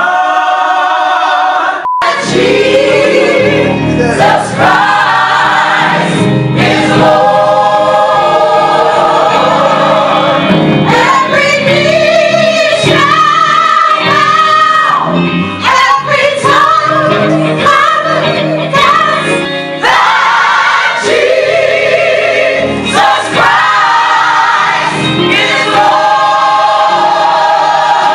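Gospel choir of mixed voices singing in full voice, with keyboard accompaniment underneath. The sound breaks off for an instant about two seconds in.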